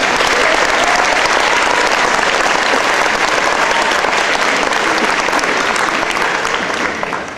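Audience applauding, a steady dense clapping that thins out near the end.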